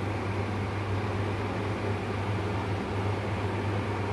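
Pot of water at a full rolling boil, a steady rushing bubbling over a constant low hum.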